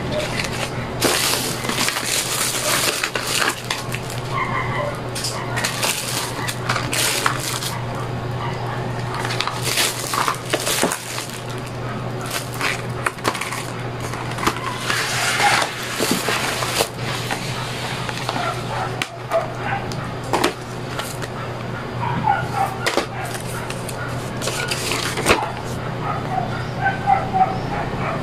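Clear plastic bags and plastic pen packaging crinkling and rustling as they are handled, with many short crackly clicks over a steady low hum. Short high pitched calls come and go in the background, most often near the end.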